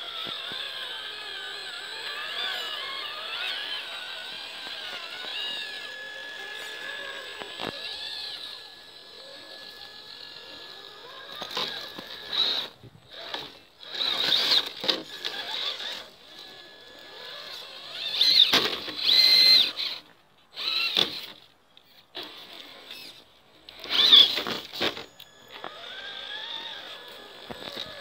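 Traxxas TRX-4 RC crawler's brushed electric motor and geared drivetrain whining, its pitch rising and falling with the throttle. After about ten seconds it comes in short separate bursts with near-silent gaps between, as the throttle is blipped on and off.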